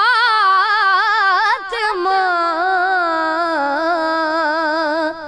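A young boy's unaccompanied voice singing an Urdu manqabat (devotional praise poem), drawing out long melismatic notes with a wavering vibrato. About two seconds in there is a brief break before he settles onto a lower held note.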